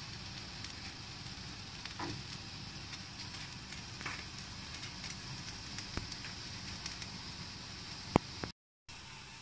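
Whole roast pig sizzling in a hot oven: a steady hiss of spitting fat with scattered small crackles, and one sharp pop near the end.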